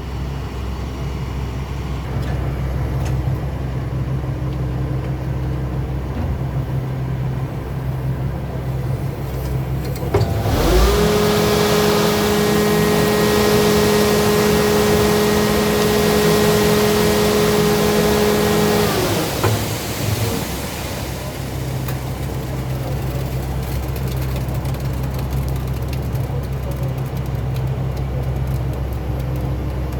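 Steady low engine hum. About ten seconds in, a louder engine revs up, holds a steady high pitch with a hiss for about eight seconds, then winds back down.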